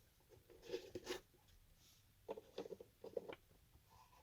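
Faint, scattered clicks and scrapes of small plastic parts being handled: the trimmed retainer clip and USB socket being test-fitted into the dash panel.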